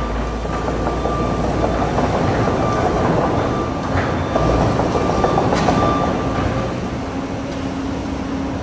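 Komatsu PC200 hydraulic excavator running under load as its bucket pushes and scrapes against a steel-clad tower, a dense rumble of diesel engine and straining metal. A couple of sharp metal knocks come about four and five and a half seconds in, and a thin steady squeal stops about six and a half seconds in.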